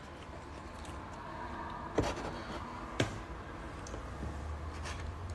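Quiet room tone with a low hum, broken by two sharp clicks about a second apart.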